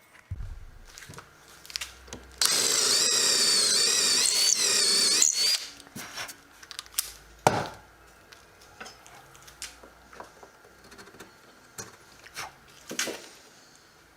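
A power drill runs for about three seconds, its pitch wavering slightly, amid scattered clicks and knocks from handling tools and wood, with a sharper knock after it and another near the end.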